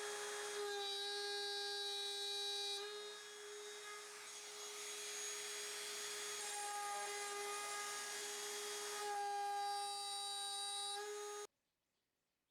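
Trim router running at full speed with a steady high whine, the noise of the bit cutting wood thickening through the middle stretch; it stops suddenly near the end.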